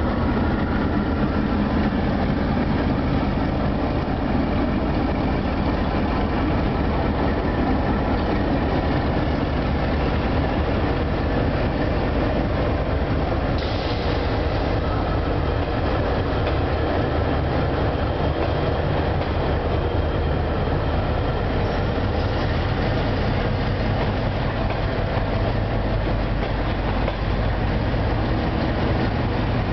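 Dongfeng 4 diesel-electric locomotive's engine running as it hauls a train of passenger coaches past, with the coaches' wheels rolling over the track. The sound stays loud and steady throughout, with a brief sharper, hissing edge about halfway through.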